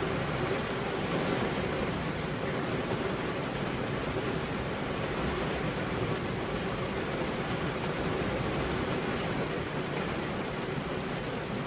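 Heavy rain falling on a road, a dense, even hiss with no thunder.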